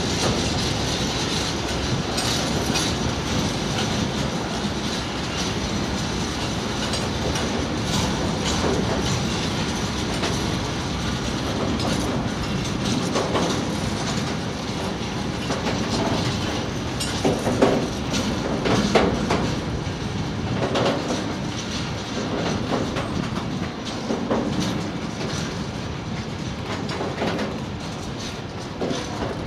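Long rake of freight engineering wagons rolling past: a steady rumble of wheels on rail, clickety-clack over the rail joints and occasional short knocks, more of them in the second half.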